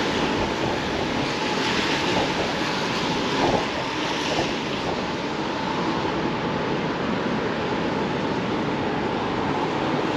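Strong gusting wind buffeting the microphone: a steady rushing noise, with a brief knock about three and a half seconds in.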